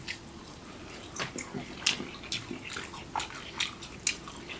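Close-up wet chewing of sauce-covered food, with a dozen or so irregular sharp mouth clicks and smacks.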